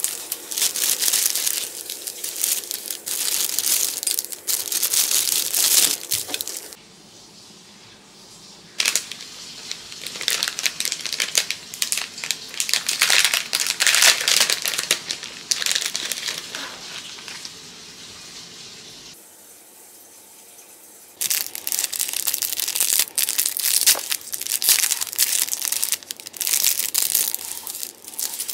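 Clear plastic packaging of small pottery hand tools crinkling as it is handled and opened, in three spells broken by two short pauses.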